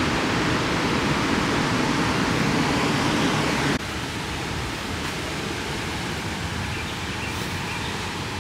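Steady outdoor rushing noise with no distinct events, dropping abruptly to a lower level about four seconds in.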